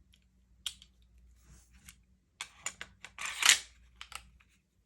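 Smith & Wesson M&P pistol parts being fitted back together: scattered sharp metal-on-metal clicks, with one louder, short scrape about three seconds in as the slide goes onto the frame.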